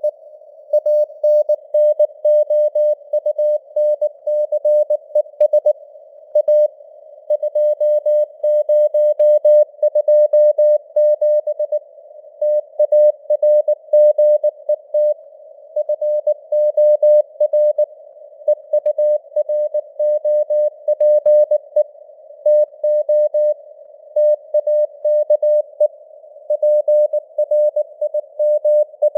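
Morse code (CW) sent at 19 words per minute: a single steady beep keyed on and off in dots and dashes, with short gaps between letters and words. It sits in a narrow band of simulated radio hiss, and the signal strength fades up and down (QSB).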